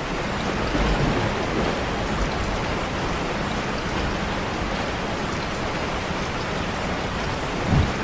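Steady rain falling, an even, unbroken wash of rain sound from a recorded rain track.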